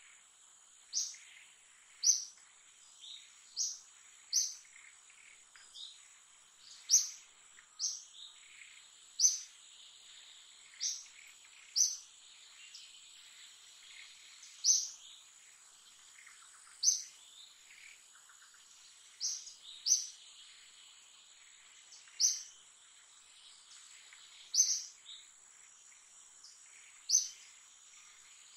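A bird gives short, high chirps again and again, one every one to three seconds, over a steady, high, thin insect drone.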